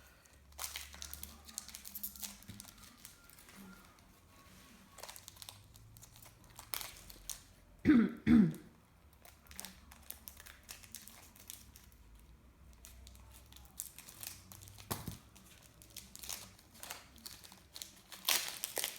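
Trading-card packet wrappers crinkling and cards being handled in light, scattered rustles, broken by two sharp coughs about eight seconds in.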